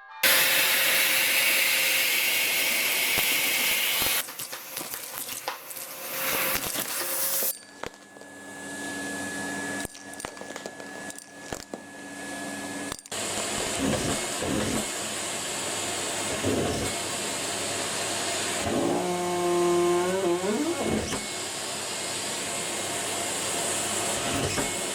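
Vacuum cleaner motor running, its sound changing several times. A short wavering pitched sound comes about twenty seconds in.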